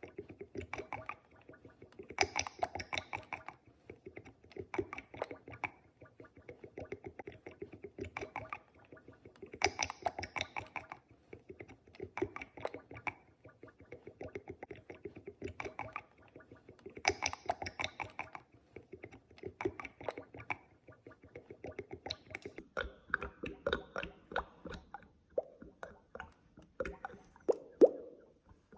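Oil sloshing back and forth in regular surges of rapid, gurgling clicks, about one surge every two and a half seconds. The surges turn irregular near the end, with one sharper knock just before the end.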